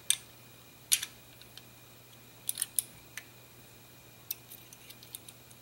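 Small metal clicks and taps of a Harrington & Richardson American Double Action revolver being reassembled, as its cylinder is seated in the frame and the cylinder pin is handled. A sharp click just after the start and another about a second in, a quick cluster of clicks around two and a half seconds, then lighter ticks near the end.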